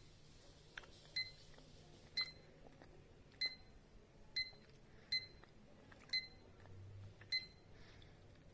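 Digital desk clock's buttons being pressed one after another, each press a small click followed by a short high beep. Seven beeps, unevenly spaced about a second apart.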